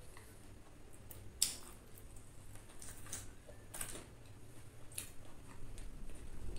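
Crisp deep-fried chicken coating, made with cornflour and oats, crunching and crackling in a handful of short, sharp clicks. The loudest comes about one and a half seconds in.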